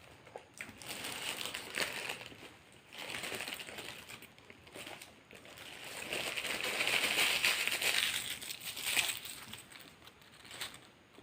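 Paper food wrapper crinkling and rustling as it is handled, in several long swells, the longest and loudest from about six to nine seconds in.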